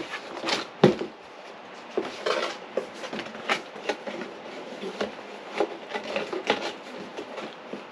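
Lego set contents being handled and set down: irregular taps, clicks and rustles of plastic parts and packaging, with one sharper knock about a second in.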